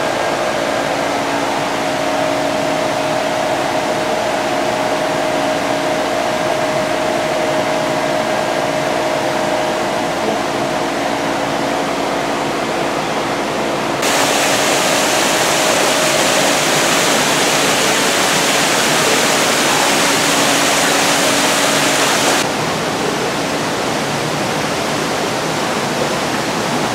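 Steady hiss of circulating water and pumps from the reptile tanks, with a low steady hum underneath. About halfway through, the hiss turns louder and brighter for about eight seconds, switching on and off abruptly.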